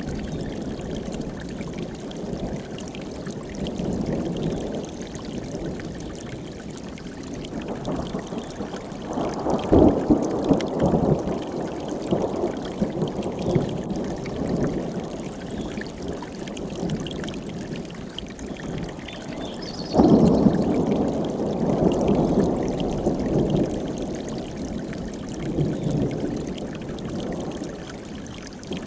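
A mountain stream rushing steadily, with thunder rumbling over it. One long roll swells about a third of the way in, and a sharper clap comes about two-thirds in, then rolls off slowly.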